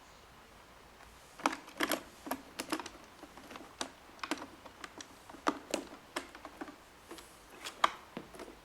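Irregular light clicks and taps, beginning about a second and a half in and going on unevenly: robot vacuum parts being handled.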